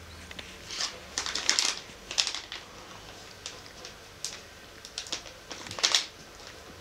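Cat crunching a Dreamies cheese cat treat: irregular crisp crunches in small clusters, with short pauses between.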